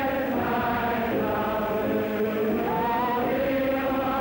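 A woman singing a song with long held notes, with other voices singing along, on an old film soundtrack.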